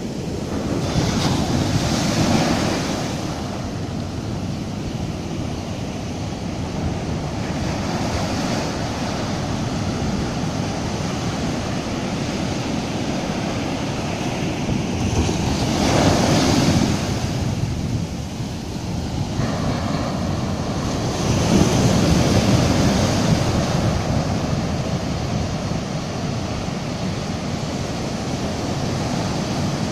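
Sea surf breaking on a sandy beach, the foaming swash rushing up the sand and draining back. The rush swells three times: about a second in, around the middle, and about two-thirds of the way through.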